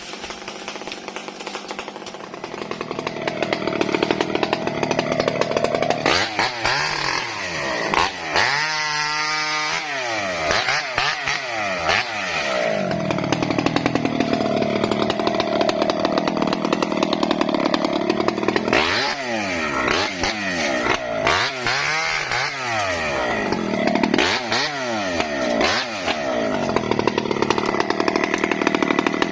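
Chainsaw running while cutting mahogany wood. The engine pitch rises and falls several times, with steadier stretches in between.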